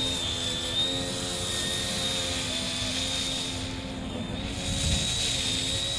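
Electric motor and propeller of a radio-controlled model Cessna running at low throttle as it taxis over grass: a steady hum with a thin high whine.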